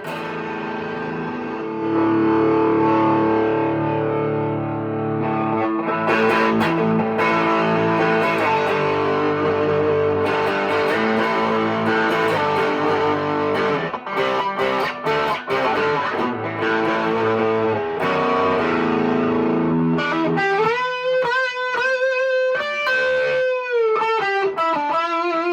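Electric guitar played through an amp on a high-gain distorted setting. Held chords ring out for most of the time, and from about 20 seconds in it changes to single-note lead lines with string bends.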